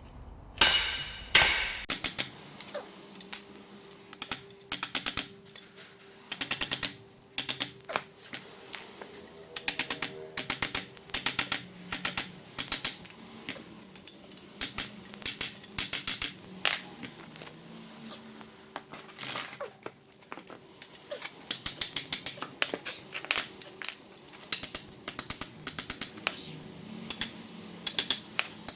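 Hammer blows on a steel chisel driven between a seized leaf spring bush's outer steel casing and the spring eye, in quick bursts of several sharp metallic strikes, caving the casing in to free the old bush.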